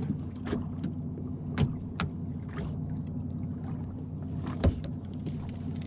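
Boat's outboard motor idling with a steady hum, with several sharp knocks and clatters on the boat, the loudest a little before the end.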